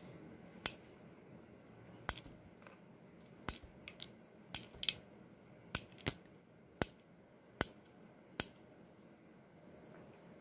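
Single-action .45 Long Colt revolver being unloaded through its loading gate: about a dozen sharp metallic clicks at uneven intervals as the cylinder is turned and the brass cartridges are pushed out and drop.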